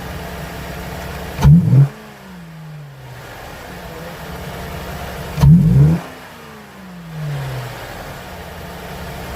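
Saturn Outlook's 3.6-litre V6 idling, given two quick throttle snaps about four seconds apart. Each snap revs up sharply and winds back down to idle over about a second.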